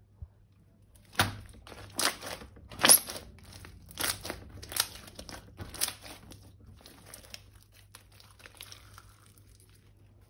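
Crinkling and crackling in a run of sharp bursts, about one a second, the loudest near three seconds in, fading to faint crackles before the end.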